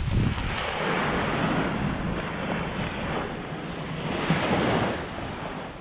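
Waves breaking and washing up on a beach shore, in two surges, the second one a little under a second after the first dies down, with some wind buffeting the microphone.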